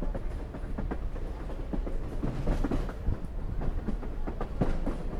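Passenger train running along the track, heard from aboard: a steady low rumble from the wheels on the rails, with irregular clicks and knocks as the car rides over the track.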